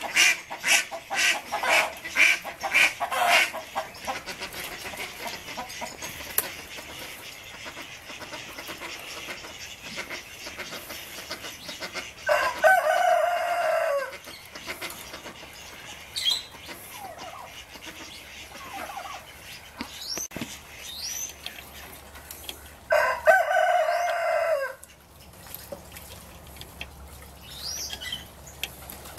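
A rooster crows twice, each crow nearly two seconds long and about ten seconds apart; these are the loudest sounds. Before them comes a fast run of about eight loud calls, and a few faint small-bird chirps are heard between the crows.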